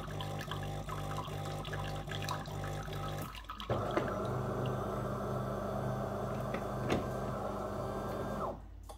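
DeLonghi PrimaDonna Elite bean-to-cup coffee machine running its start-up rinse: the pump hums in a pulsing rhythm as hot water runs from the spout into a glass. The pump breaks off briefly a little over three seconds in, runs again as a steadier, louder hum, and stops shortly before the end.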